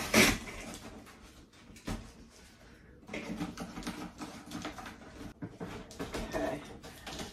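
Cardboard box being opened by hand: packing tape and cardboard flaps crackling and rustling, with a sharp snap just after the start and another about two seconds in.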